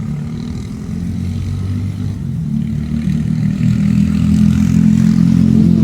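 A motor vehicle engine running with a steady low hum that grows louder toward the end, then begins to fade.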